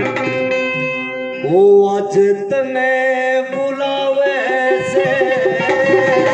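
A man singing a Hindu devotional song into an amplified microphone, holding long wavering notes, with sustained instrumental notes and a short repeating accompaniment pattern beneath.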